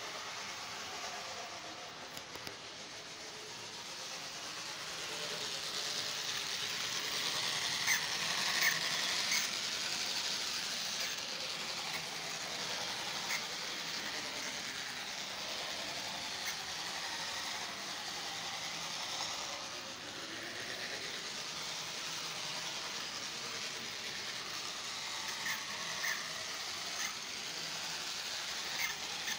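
Model diesel train running on its track: a steady whir of the small motor and wheels on the rails, growing louder as it passes closest about eight seconds in, with a few light clicks there and again near the end.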